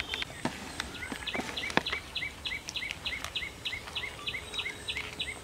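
A bird calling in a quick, even series of short high notes, about five a second, starting about a second in, over outdoor background noise. A few light clicks come in the first two seconds.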